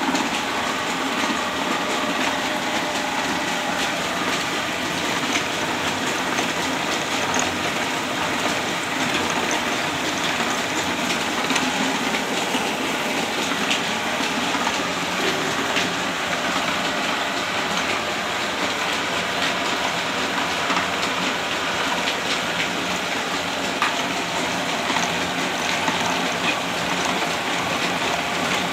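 Mustard oil expeller mill running: the 24-bar screw expeller and its flat-belt drive give a steady, dense mechanical clatter with frequent light ticks.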